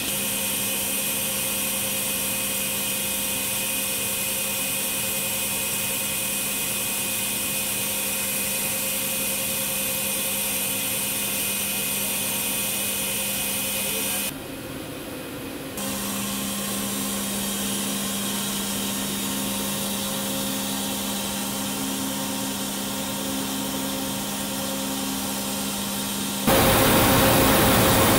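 Steady hum of a robotic machine tool's spindle running, a low tone with a few fainter higher overtones over a background hiss. It drops out briefly about halfway, then resumes. Near the end a louder, steady rushing noise takes over.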